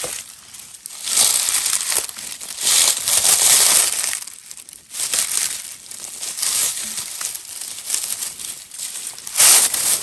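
Footsteps crunching and rustling through dry leaf litter and undergrowth, in uneven surges every second or two.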